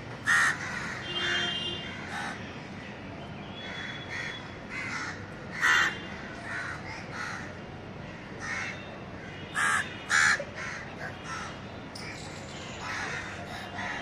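A flock of house crows cawing: many short calls from several birds in quick succession, the loudest near the start, about six seconds in, and two close together about ten seconds in.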